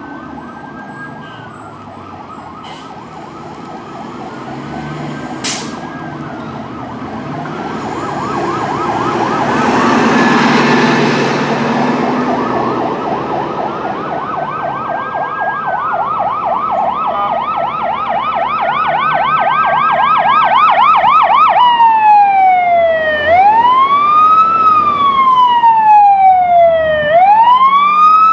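Fire trucks' electronic sirens approaching and growing louder: a fast yelp with a slower wail from a second siren over it. About 21 seconds in, the lead siren switches to a slow wail that rises and falls every few seconds. Around ten seconds in, the noise of a vehicle passing close by swells briefly.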